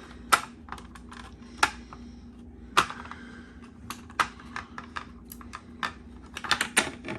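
Irregular sharp plastic clicks and taps as the cover of a 1970s Archer 275-451 ionization smoke alarm is pried and worked loose by hand, with a quick cluster of clicks near the end, over a faint steady hum.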